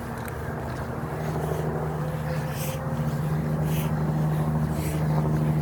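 A motor vehicle's engine humming steadily at a low pitch, growing gradually louder as it draws nearer.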